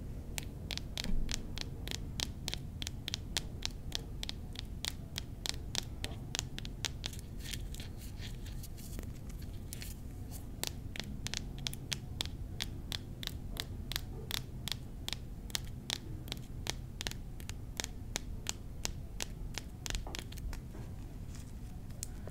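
Rapid, uneven tapping on small mini-bar bottles, several sharp taps a second, over a steady low hum.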